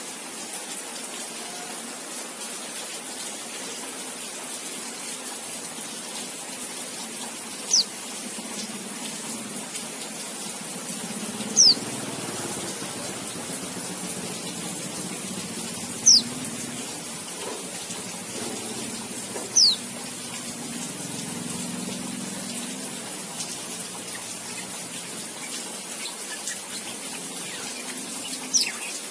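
Young white-rumped shama, just learning to sing, giving short, high whistled calls that slide down in pitch, five times a few seconds apart. A steady hiss runs underneath.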